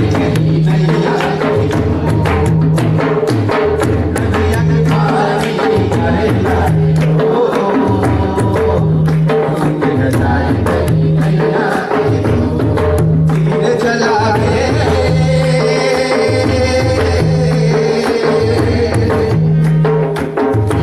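Folk-style music with a steady, repeating drum beat and singing.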